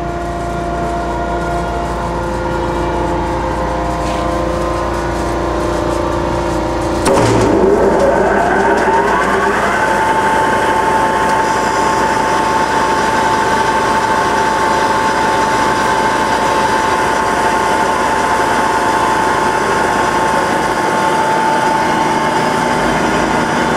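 Ohmiya OC-16A centerless grinder running with a steady machine hum while its hydraulic pressure builds. About seven seconds in, a click comes as the wheel drive switches on, and the wheels spin up with a whine that rises in pitch over a few seconds. The whine then settles into a steady high tone over the machine's running noise.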